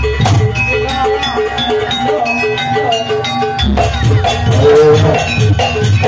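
Live jaranan music from a Javanese gamelan-style ensemble. Drums play under a metallic struck note that repeats about four times a second. A deep bass layer drops out for a moment and comes back a little after halfway.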